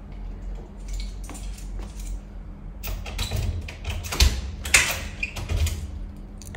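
A cat scrabbling at the bottom of a wooden door and the sheet of paper in the gap beneath it: scraping and rustling, louder from about three seconds in, with two dull knocks a little after four and near five seconds.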